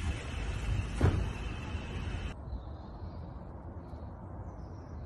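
Wind buffeting a handheld phone's microphone outdoors, a low rumble with hiss, and a single thump about a second in. A little past two seconds the hiss drops away abruptly, leaving a quieter rumble.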